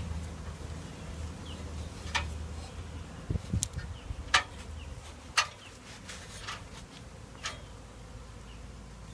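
Honey bee swarm buzzing close by, a steady hum, with five or so sharp clicks or snaps scattered through it.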